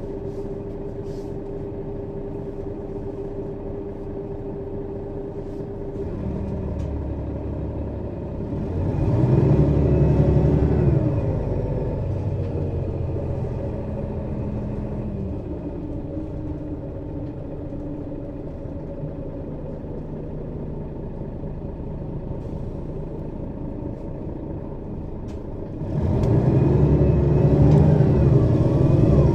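Mercedes-Benz Citaro city bus's diesel engine, heard close from over the engine. It runs steadily, then about eight seconds in the revs climb hard as the bus accelerates. It eases back to a quieter steady run, and near the end it accelerates hard again.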